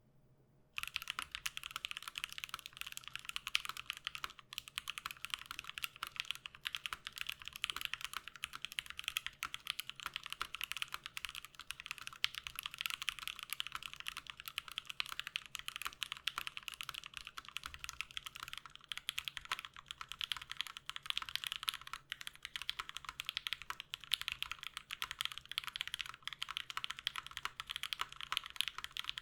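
Fast continuous typing on a mechanical keyboard fitted with Everglide Aqua King V3 linear switches, PBT keycaps and an aluminium plate. It starts about a second in as a dense stream of key presses and returns.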